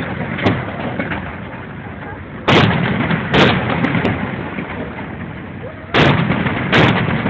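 Fireworks shells bursting in the air with loud bangs, in two pairs less than a second apart, the first pair a few seconds in and the second near the end. A continuous rumble fills the gaps between the bangs.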